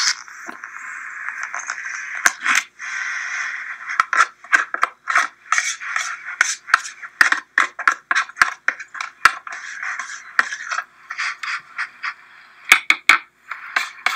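Damp potting soil, expanded from a soaked compressed disc, being scraped out of a flower pot: a steady gritty hiss broken by many quick scrapes and clicks, with a few sharp knocks near the end.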